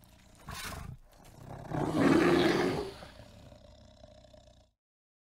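Brown bear growling: a short growl about half a second in, then a louder, longer growl about two seconds in that trails off. The sound cuts off suddenly near the end.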